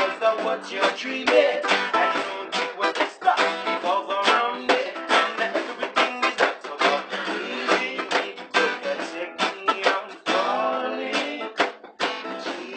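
Two acoustic guitars and a ukulele strummed together in a steady, rhythmic groove, with chords ringing between the quick strokes.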